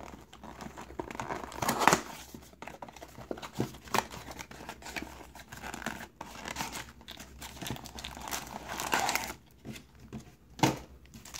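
Trading card pack wrapper crinkling and tearing as it is opened by hand and the cards are pulled out, with a few louder crackles near 2 s, 9 s and just before the end.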